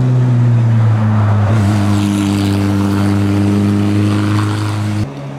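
Hill-climb competition car engine running hard at a steady, high pitch. About a second and a half in it grows brighter and noisier, and near the end it cuts off abruptly, leaving a quieter engine.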